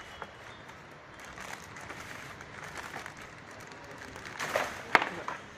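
Folding baby high chair's metal tube frame and plastic parts being handled, with light knocks and rustling, then a single sharp click near the end as a frame joint is worked.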